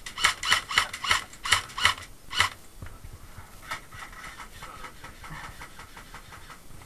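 Airsoft guns firing single shots: a quick, uneven run of about a dozen sharp cracks over the first two and a half seconds, then only faint background.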